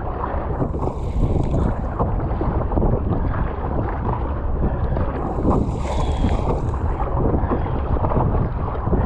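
Wind buffeting the microphone over water splashing and slapping against the hull of a plastic Epic V7 surfski paddled hard through choppy water. Higher hissing spray about a second in and again around six seconds in.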